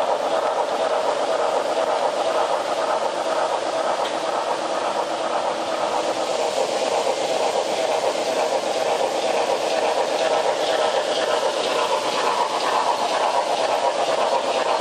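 HO-scale model train running on track, the Southern Pacific GS-4 steam locomotive model pulling passenger cars: a steady rolling and running noise, with faint quick ticks growing in the second half as the locomotive draws near.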